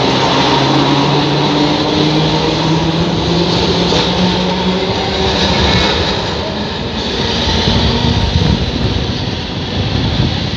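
Old Alexandria electric tram pulling away along the track: the traction motors' whine rises slowly in pitch over the first few seconds, over the steady noise of steel wheels running on the rails.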